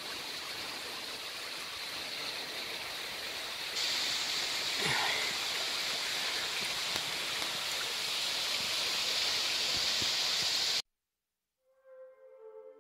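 Steady rush of running water from a stream and waterfall, louder after a cut about four seconds in. It stops abruptly about eleven seconds in, and after a second of silence soft ambient music begins.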